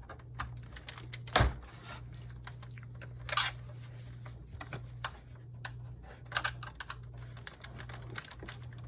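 Flathead screwdriver prying at the seam of a plastic LCD monitor bezel: scattered clicks and scrapes, with a sharper knock about a second and a half in and another about three and a half seconds in. A steady low hum runs underneath.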